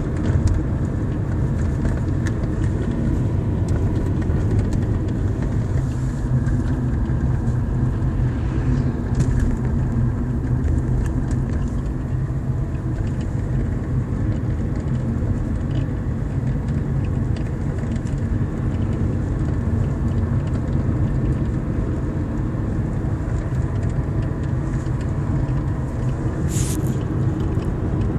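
Inside a moving Kia Cerato, steady low road and engine drone, with a few faint knocks from the dashboard panel and one sharper click near the end.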